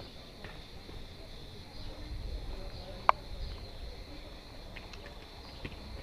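Outdoor village ambience: a steady high insect buzz under a low rumble, with one sharp click about three seconds in and a few faint ticks.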